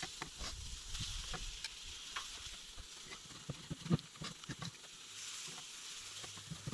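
Food sizzling on a flattop grill, a steady hiss, with scattered knocks of a cleaver and tongs on a wooden cutting board as grilled chicken is chopped, one louder chop about four seconds in.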